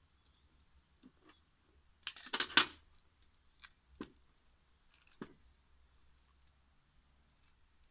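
A short burst of scraping and crackling about two seconds in as the plastic outer sheath of a power cable is cut and worked with a knife, followed by a few faint scattered clicks.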